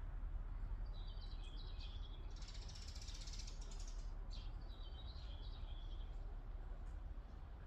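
Small birds chirping in short, repeated high phrases, with a fast buzzy trill about two and a half seconds in, over a steady low rumble.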